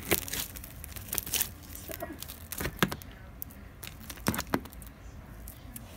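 Sticky foam-ball slime being squeezed and kneaded by hand in a plastic tub, giving irregular sharp pops and crackles with sticky tearing sounds. The slime is really sticky.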